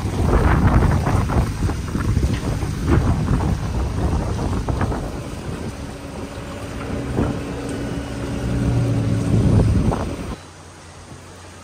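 Wind buffeting the microphone over a tractor engine running, with a steady low engine hum standing out in the last few seconds before the sound cuts off about ten seconds in.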